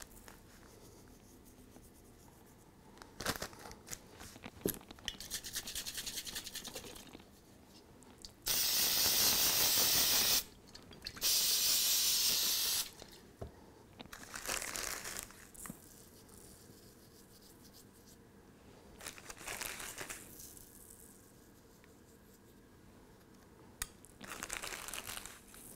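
Two bursts from an aerosol can of 3M Display Mount spray adhesive, each a steady hiss of about two seconds, about halfway through. They are the loudest sounds. Around them are quieter, shorter rustles from handling the flock-covered model tree.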